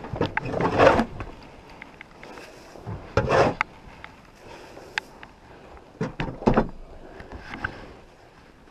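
Knocks and clattering bumps in three short bouts, about a second in, just over three seconds in and around six seconds in.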